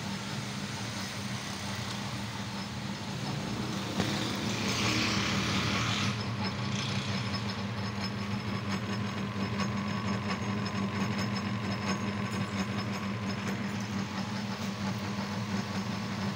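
Abdullah AE-900A dough kneader's electric motor running on a test run with the kneading blade turning in the empty plastic bowl: a steady hum. About four seconds in there is a click, then about two seconds of louder hissing noise.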